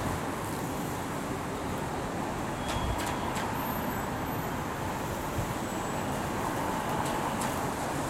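Steady wind rumbling on the microphone during a typhoon, mixed with traffic noise from cars on a wet road.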